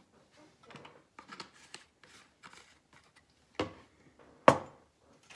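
Painted glass pint jars being handled and moved about on a table, with light rustles and clicks, then two sharp knocks from a jar being set down, the second one louder, near the end.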